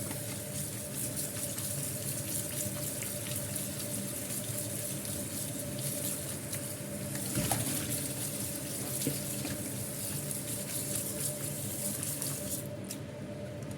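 Cold tap water running steadily onto freshly blanched bitter melon, rinsing it to stop it cooking further. A few light knocks come about halfway through, and the hiss thins near the end.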